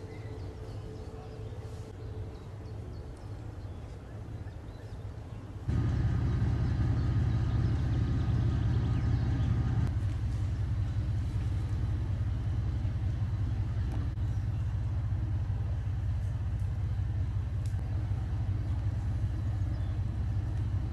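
A steady low rumble that gets abruptly louder about six seconds in and then holds steady.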